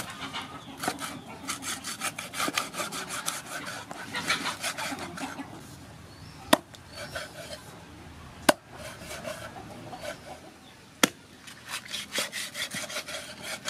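A meat cleaver sawing back and forth through stingray on a wooden chopping block, making a rapid rasping of many quick strokes. In the middle come three sharp single chops of the blade striking the block.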